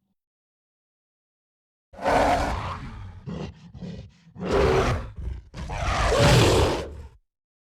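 Gorilla vocalizing. After a silent start, one loud call comes about two seconds in, then a few short, quieter pulses, then two more loud calls, the last one the longest at about a second and a half.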